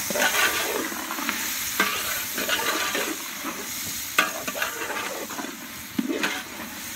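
Onions, tomatoes, green chillies and whole spices sizzling as they fry in oil in a large metal pot, stirred with a metal spoon. The spoon scrapes against the pot several times, most sharply about two, four and six seconds in.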